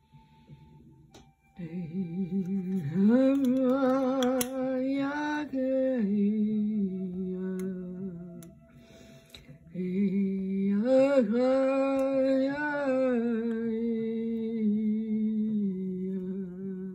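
A woman's voice singing long wordless tones with a wavering vibrato, in two long phrases with a short pause between; the pitch rises about three seconds in and settles lower again in each phrase.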